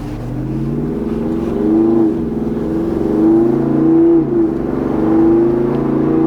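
2021 Jeep Wrangler Rubicon 392's 6.4-litre HEMI V8 accelerating under load, rising in pitch and dropping back at a gear change about four seconds in.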